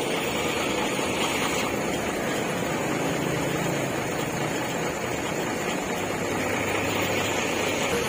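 A diesel tour coach's engine running as the bus creeps forward and pulls away, over a steady hiss of road noise.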